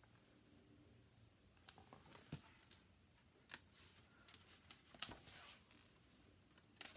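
Pages of a large picture book being turned and handled: faint paper rustles and light clicks, starting about two seconds in.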